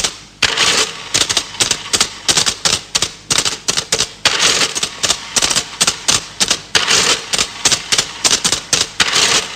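Fast, irregular mechanical clicking and clattering in imitation of a mechanical adding machine working out a total. It starts about half a second in.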